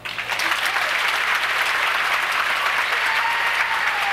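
Theatre audience applauding, starting suddenly and holding steady at full strength.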